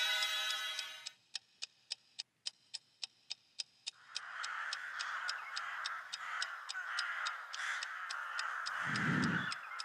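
A sustained pitched sound dies away in the first second, then a clock ticks steadily, about four ticks a second. From about four seconds in, crows caw over the ticking, and there is a low thud near the end.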